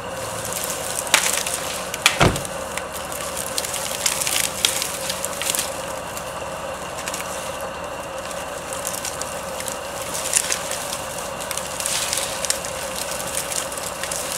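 Dry pine branches cracking and snapping as a fallen tree is pulled and dragged by hand, with scattered crackles throughout and one loud sharp crack about two seconds in.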